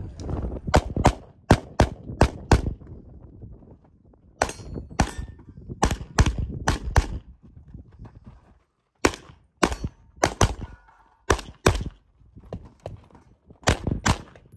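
Rapid gunshots fired in several quick strings, roughly twenty in all, with short gaps between the strings. This is a competitor shooting a timed practical-shooting stage.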